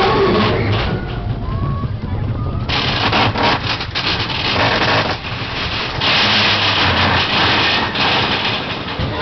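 Big Thunder Mountain mine-train roller coaster in motion, the train rumbling and clattering along the track with a few voices. About three seconds in, a loud rushing noise sets in over the clatter.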